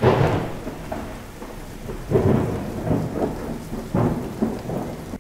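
Thunderstorm sound effect for an animated logo intro: a thunderclap at the start, then two more rumbles of thunder about two and four seconds in, over steady rain.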